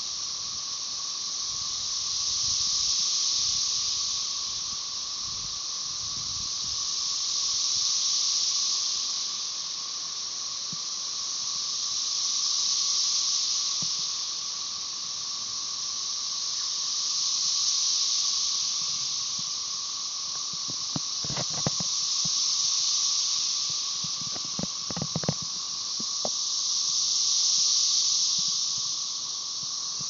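Chorus of 13-year periodical cicadas, Magicicada tredecassini: a high buzzing hiss that swells and fades in unison about every five seconds. Under it runs the steady, lower-pitched drone of Magicicada tredecim.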